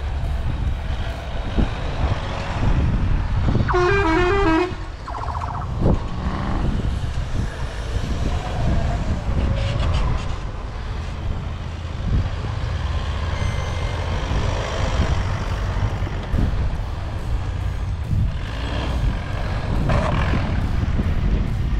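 4x4 pickup truck engine running under load through deep snow, with a steady low rumble. A vehicle horn sounds briefly about four seconds in.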